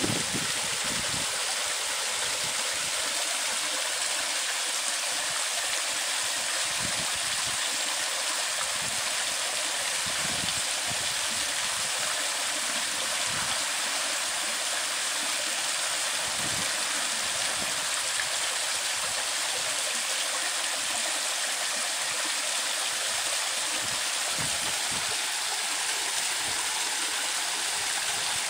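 Steady rush of water pouring from a stone wall into a canal, an even splashing flow that does not change.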